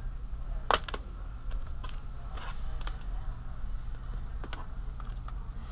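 Plastic screen bezel of a laptop being pressed into place by hand, its clips clicking in: one sharp snap just under a second in, then a few fainter clicks, over a steady low hum.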